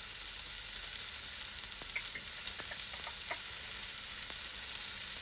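Fish fillets frying in a pan: a steady sizzle with scattered small pops and crackles, the fish crisping on the underside.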